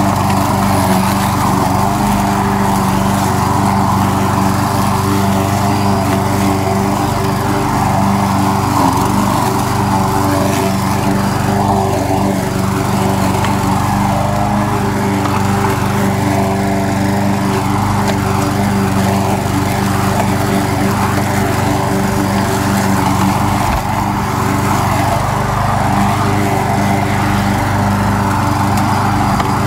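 Troy-Bilt push lawn mower's single-cylinder gas engine running steadily at a constant pitch while cutting tall grass, heard close up from the mower's handle.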